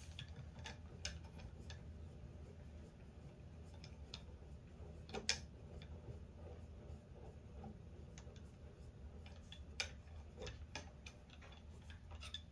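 Faint ticking and clicking from the crank handle of a Jessem Rout-R-Lift II router lift being wound to lower the router, with a couple of sharper clicks about five and ten seconds in.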